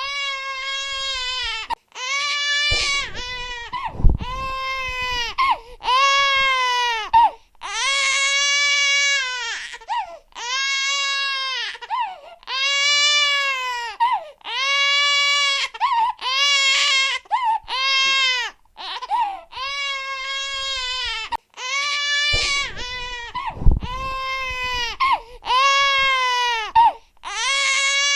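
Baby crying hard: a long run of wails, each about a second long, rising then falling in pitch, with short catches of breath between them. Two dull low bumps, about 4 s in and again near 24 s, are the loudest moments.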